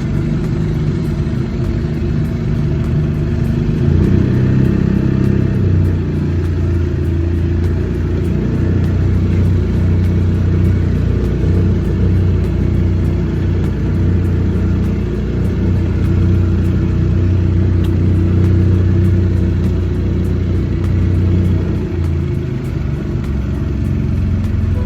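1994 Mercury 90 HP two-stroke outboard running under way. Its low drone gets louder and steadier about four seconds in, holds, then eases back near the end.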